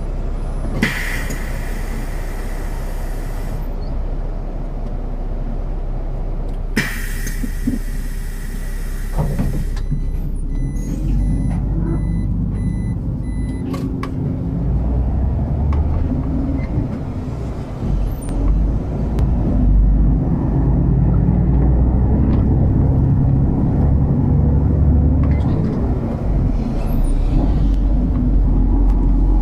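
City bus at a stop: two loud hisses of compressed air from its pneumatic system a few seconds apart, then a repeated electronic beeping for a few seconds. The engine then runs harder as the bus pulls away.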